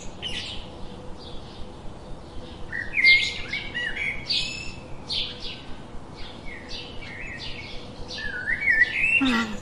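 Birds chirping and calling: many short high chirps and warbled notes, bunched into busier flurries about three seconds in and again near the end.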